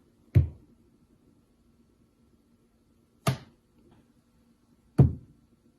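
Three separate sharp knocks, about a second in, a little after three seconds, and near the end, each dying away quickly.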